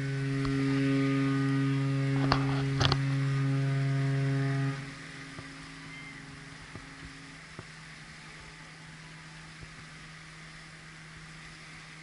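Cruise ship's horn sounding one long deep blast of about five seconds that cuts off abruptly, as part of a horn exchange between two cruise ships. Two sharp knocks come near its middle, and a fainter low steady tone carries on after the blast ends.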